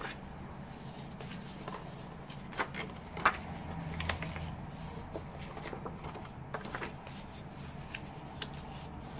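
Paper cardstock rustling and crinkling as it is folded by hand along its score lines, with a few sharper creasing clicks, the loudest about a third of the way in.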